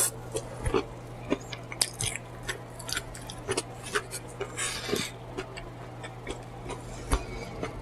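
Close-up eating sounds: wet chewing and lip smacking with irregular sharp mouth clicks, over a steady low hum.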